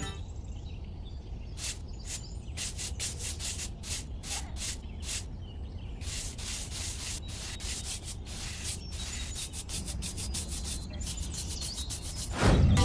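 Paintbrush bristles scrubbing paint onto a rough cement surface in quick, irregular back-and-forth strokes. A short whoosh comes near the end.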